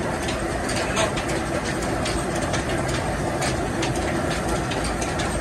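Band sawmill machinery running steadily without cutting, a constant mechanical hum with a faint steady tone, and scattered clicks and knocks while a log is loaded onto the carriage.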